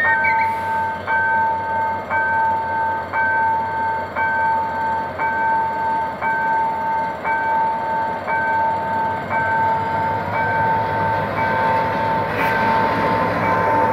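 Level-crossing warning alarm sounding a steady two-tone signal that breaks briefly about once a second. Underneath it, the diesel engine of a GM GT22CW locomotive and its passenger train grow louder in the last few seconds as the train rolls through the crossing.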